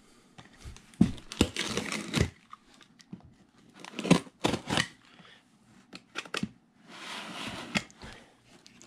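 Cardboard boxes being shifted and handled: irregular knocks and scrapes of cardboard, with a longer rustle near the end.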